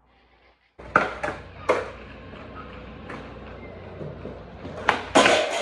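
Skateboard on a concrete garage floor: sharp clacks of the tail popping and the deck hitting about a second in, the wheels rolling in between, and a louder cluster of hits near the end as the board strikes the floor and rail.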